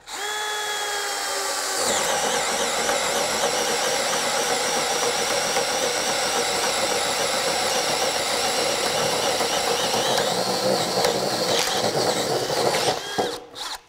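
Craftsman V20 brushless RP 1/2-inch hammer drill in low gear on a 2 Ah battery, driving a 2 9/16-inch bore bit. It spins up free with a motor whine, then about two seconds in the bit bites into the wood. The drill runs steadily under heavy load, chewing through the board, and stops shortly before the end.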